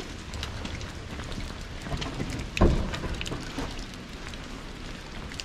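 Light rain, with irregular drops ticking close by over a soft steady hiss, and one heavier thump about two and a half seconds in.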